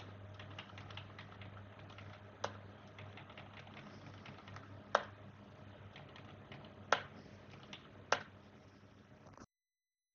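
Computer keyboard typing: a run of soft key clicks with four louder, sharper key presses spread through it, over a low steady hum. The sound cuts off abruptly near the end.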